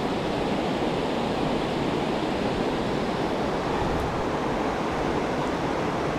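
Steady rushing of a river running through a gorge, an even wash of water noise with no breaks.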